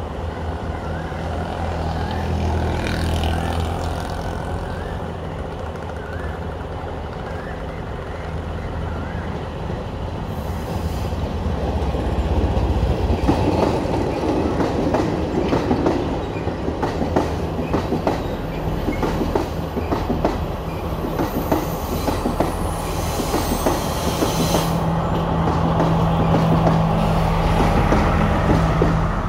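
Blue diesel passenger train passing close by on a curve: its engine drones as it approaches, then the coach wheels clatter over the rail joints with a faint high wheel squeal, and the rear power car's engine hums loudly as it goes past near the end.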